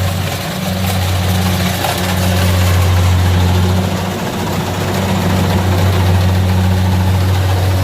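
Kubota DC70 rice combine harvester running at steady engine speed: a loud, steady low drone.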